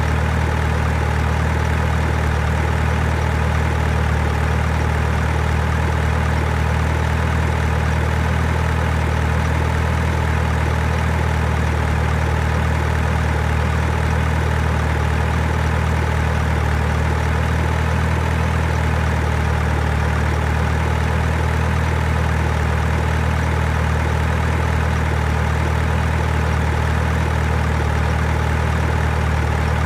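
A truck engine idling steadily: a deep, even hum that holds the same pitch and level throughout, without any revving.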